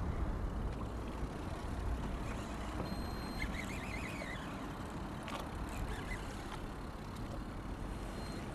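Steady low rumble of an aluminium fishing boat on open water: wind and motor noise. A short high warbling chirp comes in about three and a half seconds in.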